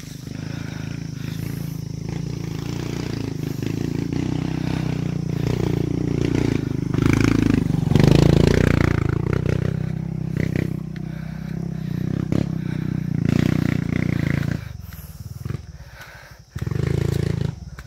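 A Honda XRM 125 underbone motorcycle's single-cylinder four-stroke engine pulling up a dirt trail. It grows louder as it passes close by about halfway through, its pitch bending as it goes past, then fades and drops away a few seconds before the end. A short loud burst of noise comes near the end.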